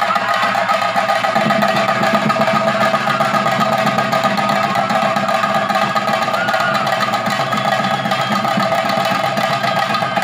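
Chenda drums played in a fast, continuous roll for a theyyam, with steady held tones ringing above the drumming. The drumming grows fuller about a second and a half in.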